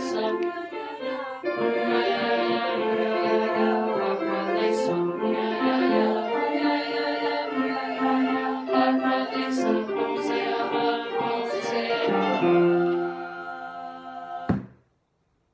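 Virtual student choir singing a Zambian welcoming song a cappella in held chords, with a few sharp taps of fruit-and-vegetable percussion. A final chord is held and fades, then the music cuts off abruptly near the end.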